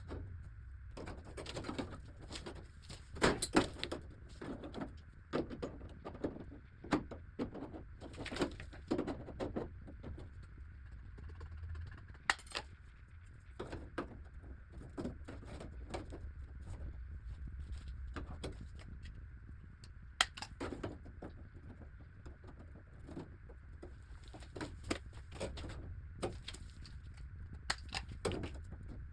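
Scattered light clicks and knocks at irregular intervals over a steady low hum.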